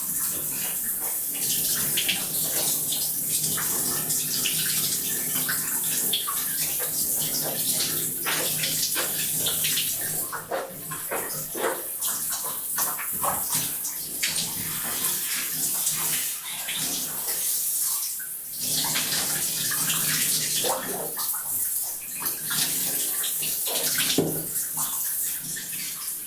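Water running into a bathtub and splashing steadily, with irregular splashes and drips hitting the tub and water throughout.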